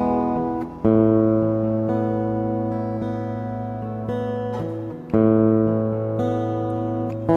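Instrumental backing music with guitar-like plucked chords: a new chord strikes about a second in and another about five seconds in, each ringing and slowly fading.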